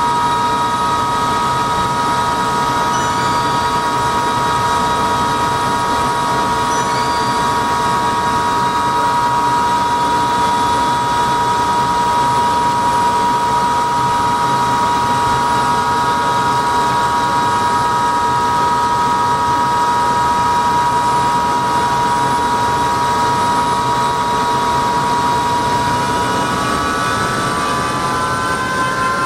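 Helicopter in flight heard from inside the cabin: a steady high turbine whine over loud rotor and engine noise. The whine shifts upward in pitch near the end.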